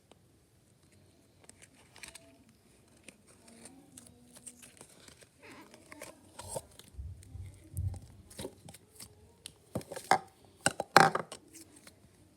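Packaging of a slime being handled and opened: crinkling and tearing with scattered clicks, growing busier partway through and loudest near the end.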